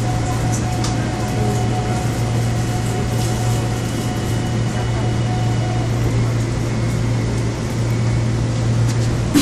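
Steady hum and fan noise inside a car of a Korail class 351000 IGBT electric multiple unit, with air-conditioning running; a faint steady whine runs through it and stops about six seconds in.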